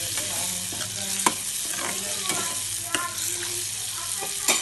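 Goat lung pieces frying in oil in a steel kadai, sizzling steadily while a metal spatula stirs and scrapes them. A few sharp clicks stand out, the loudest about a second in and just before the end.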